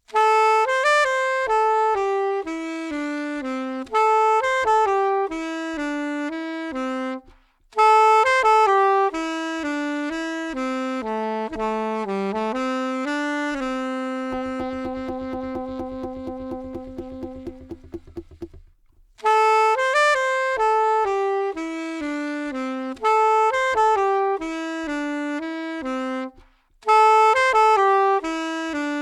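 Solo saxophone playing a slow melody in phrases of several seconds with short pauses between them, holding one long low note in the middle.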